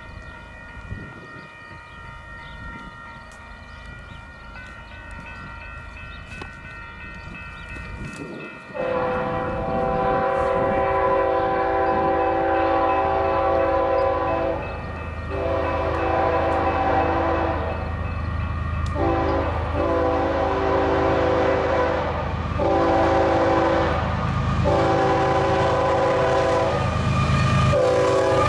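Union Pacific diesel locomotive horn blowing for a grade crossing, faint at first. About nine seconds in it turns loud and sounds a string of long blasts with short breaks, over the growing rumble of the approaching locomotive and train. At the end the horn's pitch drops as the lead locomotive passes.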